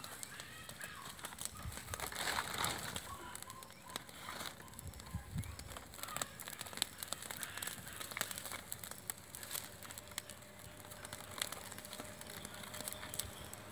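A small fire of dry palm fronds crackling with frequent irregular snaps, as plucked chickens are singed over the flames.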